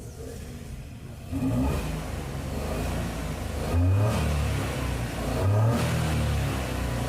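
Maruti Suzuki Celerio CNG's engine coming in about a second in, then revved in short bursts on the accelerator. It is an engine scanned with misfire codes on all cylinders, brought in because it won't rev up freely.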